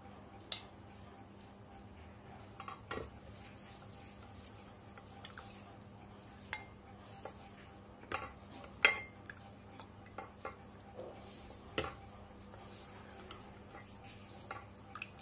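A steel ladle scraping and clinking against the inside of an aluminium pressure cooker as chunks of meat curry are scooped out. It comes as scattered knocks, some with a short ring, and the loudest is about nine seconds in.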